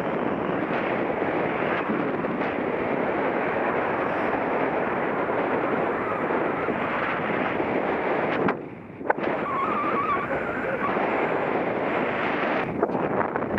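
Wind buffeting the microphone of a harness-mounted camera in paragliding flight: a steady rough rush that drops away briefly a little past halfway, with a single sharp click as it returns.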